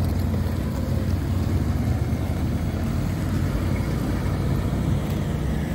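A 1959 Cadillac's V8 running at low revs as the car rolls slowly past, a steady low engine note.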